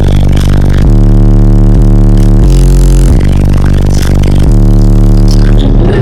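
Very loud bass-heavy music from a car audio system with sixteen 12-inch subwoofers: deep sustained bass notes that step to a new pitch about once a second.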